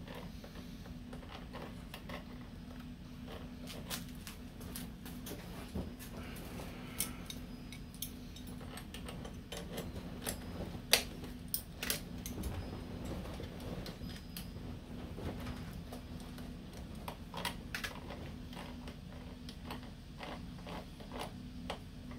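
Light metallic clicks and taps of a small wrench working on a motorcycle clutch lever mount, scattered irregularly, with one sharper click about eleven seconds in, over a steady low hum.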